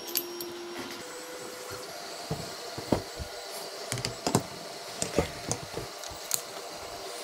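Irregular light clicks and knocks of tools and 3D-printer kit parts being picked up and handled, a dozen or so scattered taps, the sharpest about 3, 4 and 5 seconds in.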